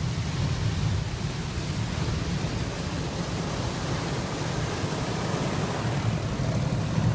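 Automatic car wash working over a car, heard from inside the cabin: a steady rush of water spray and brushes with a low rumble.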